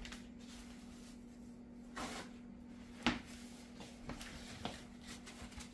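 Faint handling noises: a few light clicks and knocks, the sharpest about three seconds in, over a steady low hum.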